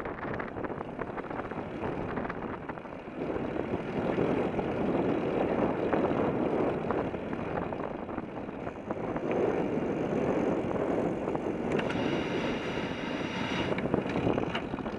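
Wind buffeting the microphone of an action camera mounted low on a moving bicycle, mixed with the rumble of the tyre rolling on asphalt, swelling and easing as the ride goes on. A faint high whine joins in for a couple of seconds near the end.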